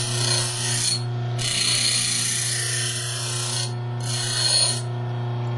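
Bench grinder running steadily while a hacksaw-blade pick blank is held against the wheel in three passes of steel grinding on the stone, the middle one the longest. Near the end only the motor running is left.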